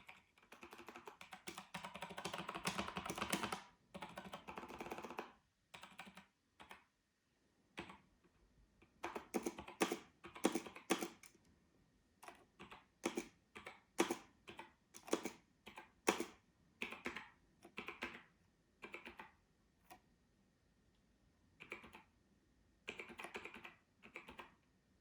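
Keys of an Apple Adjustable Keyboard being typed on to test it after cleaning: a fast run of keystrokes early, then single presses in clusters with short pauses between.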